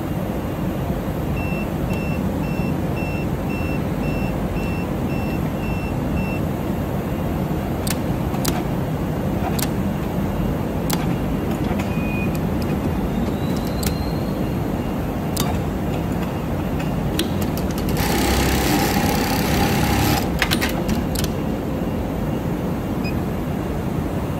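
Steady workshop machinery noise, with a run of about ten short high beeps, two a second, in the first few seconds. Then come a handful of sharp clicks from the Hikari automatic sewing machine being set up, and a loud hiss lasting about two seconds near the end.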